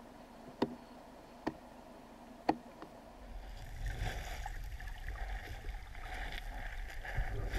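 Scuba diver wading through shallow lake water, heard through a camera's underwater housing: three sharp clicks about a second apart, then from about three seconds in a muffled, low rumbling slosh of water.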